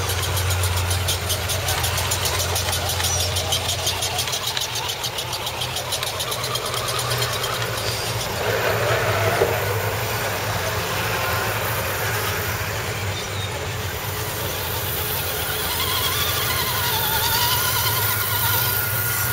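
Small electric motors and geared drivetrains of radio-controlled scale crawler trucks running as the trucks creep across a concrete slab, the whine wavering in pitch near the end. A brief knock about nine seconds in.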